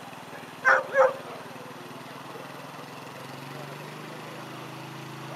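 A dog barks twice in quick succession about a second in, over a steady low engine hum.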